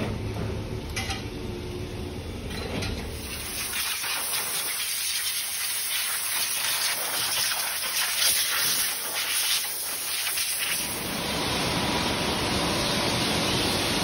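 Pressure washer spraying water to rinse foam off a car: a steady hissing rush of spray that grows stronger about three seconds in and fuller again near the end.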